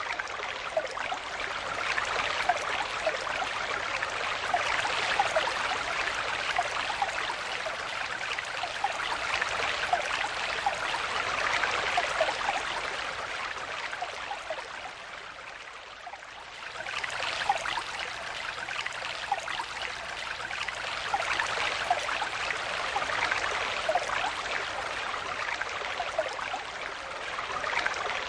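Stream water flowing: a steady rush with many small splashes through it. The sound fades down for a moment about halfway through and comes back.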